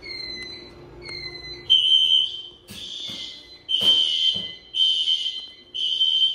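Hotel fire alarm system sounding during a test: loud, high-pitched steady horn tones about a second long, repeating with short gaps. Quieter tone pairs with a slightly falling pitch are heard in between.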